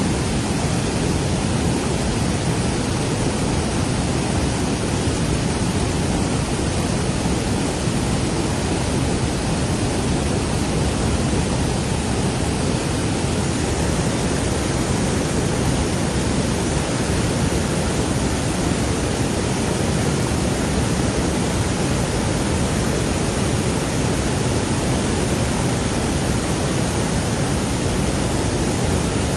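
Floodwater flowing fast, a steady loud rush of water with no breaks.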